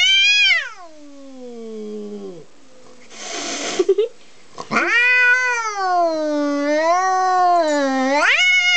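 Male orange tabby cat yowling angrily: a low yowl that falls in pitch over about two seconds, a short hiss about three seconds in, then a long wavering yowl of some five seconds that rises in pitch near the end.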